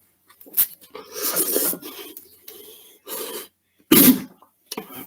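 A person coughing and hacking in harsh, raspy fits, a long rasping stretch early on and the loudest cough about four seconds in, set off by eating fiery-hot spicy ramen noodles.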